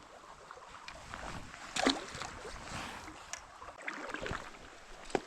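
Creek water splashing and sloshing at close range, uneven, with a louder splash about two seconds in.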